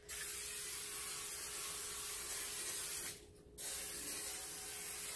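Aerosol cooking spray hissing onto metal baking sheets in two long sprays, with a half-second break about three seconds in.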